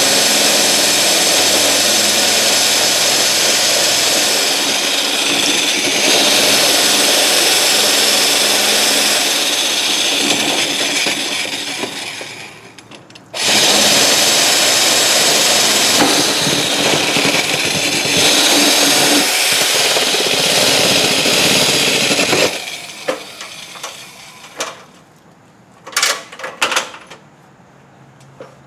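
A power tool running steadily at full speed in two long runs, about twelve and nine seconds, with a short break between, followed by a few scattered knocks and clicks.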